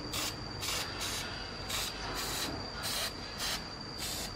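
Repeated short scrubbing strokes on an induction cooktop's circuit board, about two a second, cleaning corroded, green component legs.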